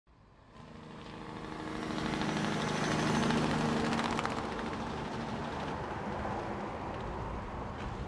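Farm machinery engine running, fading in over the first two seconds. A steady hum is heard through the first half, then gives way to a more even rushing sound.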